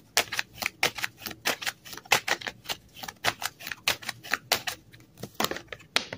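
A deck of tarot cards being shuffled by hand: a quick, irregular run of card flicks and slaps, about five a second.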